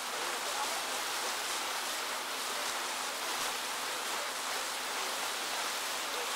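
Steady rushing noise of wind and water from a boat moving across a lake, with a faint steady hum underneath.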